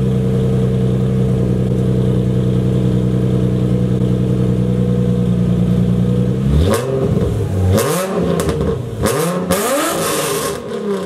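Nissan 350Z's V6 engine through a straight-pipe exhaust, idling steadily and then blipped up and down several times from about six seconds in.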